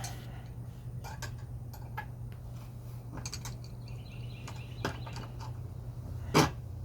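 Hand tools working on a small gasoline generator's bolts: scattered light metallic clicks and taps, with one louder knock about six seconds in.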